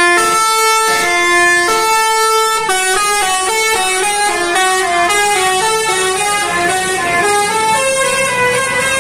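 Bus's telolet basuri horn, a set of musical air horns, playing a tune. It opens with long notes swinging between two pitches, breaks into a quicker run of stepping notes about three seconds in, and settles on a held note near the end.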